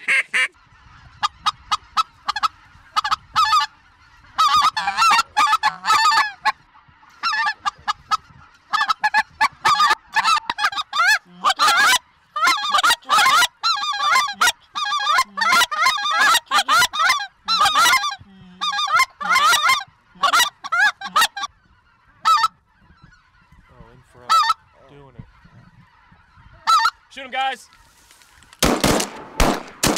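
A large flock of geese calling in flight: many overlapping high honks and yelps that come in waves and thin out over the last third. Near the end a rapid run of sharp cracks starts.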